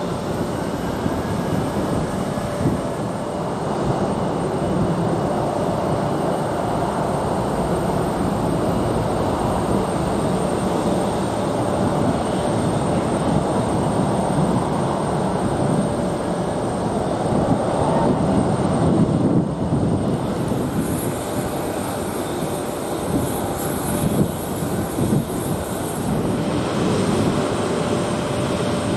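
Twin-engine jet airliners (Boeing 737 and Airbus A319) on the runway, their engines making a steady, dense noise with a faint steady tone in it.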